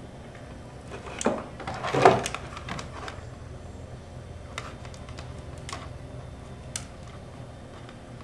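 Handling noise from wiring work: scattered light clicks and rustles of electrical wires and crimp connectors being handled, the loudest cluster about two seconds in, over a low steady room hum.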